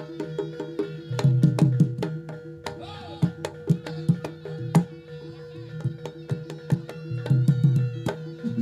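Live Javanese gamelan-style accompaniment for a barongan dance: hand drums playing quick, irregular deep strokes and sharp slaps over a steady held tone.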